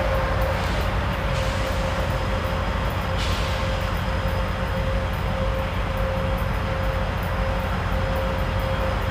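EMD diesel-electric locomotive at the head of a loaded coal train running at low speed: a steady rumble with a constant whining tone over it.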